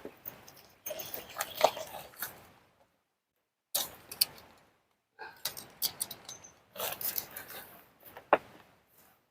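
Scattered rustling and sharp clicks of something being handled, in several short bursts broken by silent gaps.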